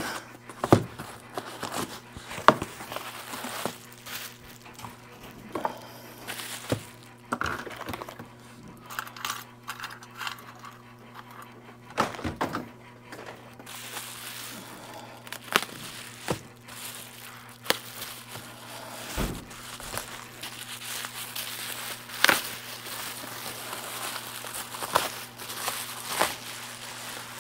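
A cardboard box being opened and a part unwrapped from plastic bubble-wrap packaging: crinkling plastic with scattered taps, clicks and thumps. A steady low hum runs underneath.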